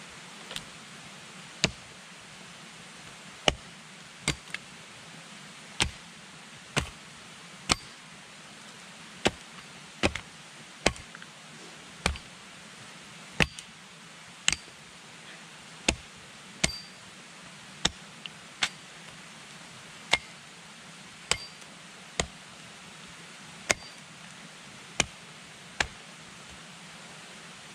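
Axe head striking the top of an upright wooden pole again and again, pounding it into the ground: sharp wooden knocks about once a second at an even pace, some much louder than others.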